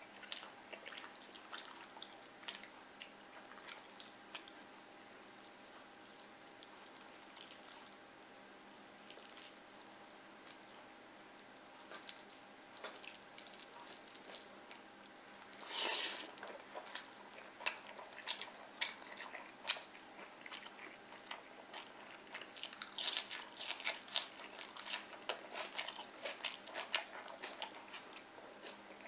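Close-miked eating of fried fish and rice by hand: wet, smacking chewing with many quick mouth clicks. One louder, longer burst comes a little past halfway, and the clicks grow dense for a few seconds near the end.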